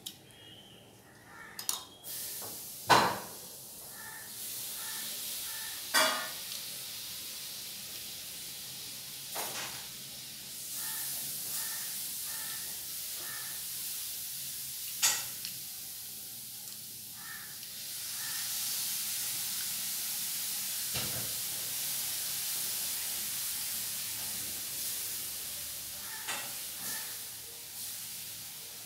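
Steady hiss, with a few sharp clicks and knocks now and then.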